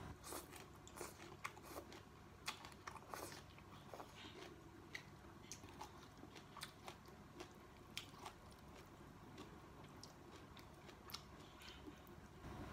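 Faint close-up chewing of vegetables from a sour shrimp soup: irregular small crunches and mouth clicks.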